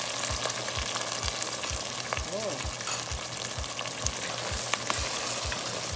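Pork belly in coconut milk sizzling and bubbling in a pot, with a fine steady crackle as the coconut milk reduces and the oil renders out, while a spoon stirs through it.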